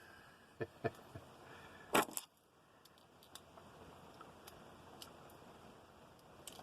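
Light metal clicks and clinks of two small keyring multi-tools, with their keys, being handled: a few soft clicks in the first second, then the loudest, a quick clink-clink about two seconds in, followed by faint handling ticks.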